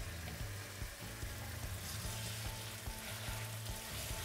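Thick chunk of pork neck frying in hot oil in a stainless steel pan, a steady sizzle.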